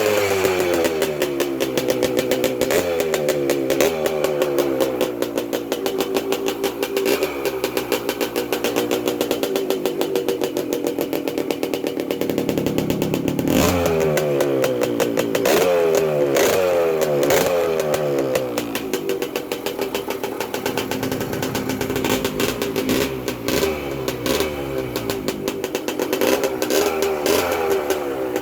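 Yamaha DT175 motorcycle's single-cylinder two-stroke engine being revved over and over in short blips, its pitch rising and falling with each one. The hardest revs come around the middle, after which it runs lower with smaller blips.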